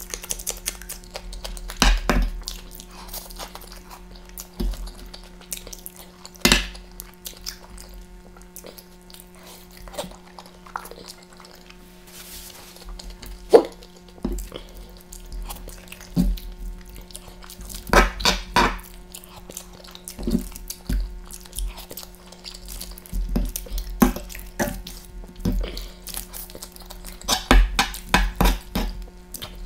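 Close-miked eating: wet chewing and smacking of noodles and bites of a raw green chilli, in irregular bursts of sharp clicks. A fork now and then clinks and scrapes on the tray, over a steady low hum.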